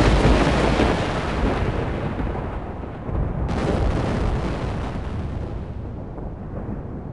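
Thunder: a loud crack that rolls on and slowly fades, with a second crack about three and a half seconds in.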